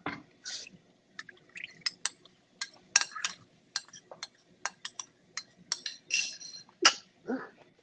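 A spoon clinking and scraping against a plate in a quick, irregular run of sharp clinks, as the last of the tomato paste is washed off the plate with a little water.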